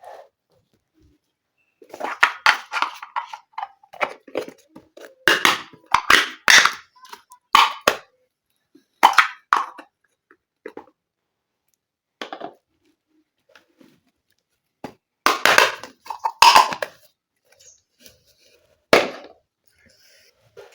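Small plastic toy kitchen pieces and their packaging being handled: irregular clicks, taps and rustles in short clusters with brief pauses between.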